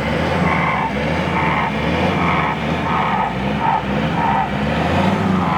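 Off-road 4x4 engine running hard under load, its sound rising and falling in a repeating pulse about every half second, with tyre noise.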